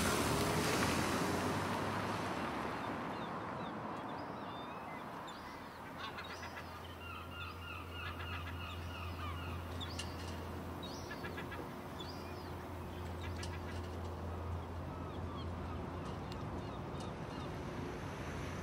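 Birds calling again and again, thickest in the middle stretch, over a low steady hum. Street noise fades out in the first few seconds.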